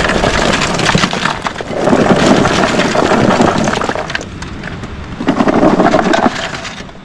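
Lumps of charcoal tumbling and clattering as they are poured onto a fire, a dense crackly rattle with two louder spells, about two seconds in and about five seconds in.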